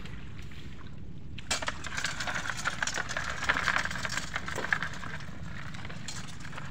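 Live mud crabs and metal tongs in a basin: a dense run of small clicks, scrapes and crackles as the crabs scrabble against each other and the container. It starts about a second and a half in and eases off after about five seconds.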